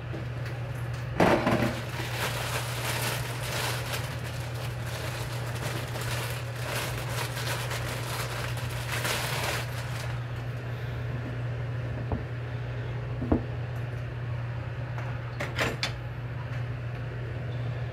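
Food-preparation handling sounds: scraping and rustling for several seconds, then a few sharp clicks and knocks, over a steady low hum.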